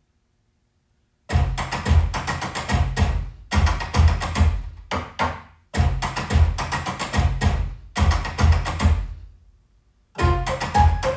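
Percussive, drum-heavy music with deep bass strikes, played through a pair of Tannoy Kingdom Royal loudspeakers and heard in the room. It starts about a second in and comes in phrases broken by two short pauses.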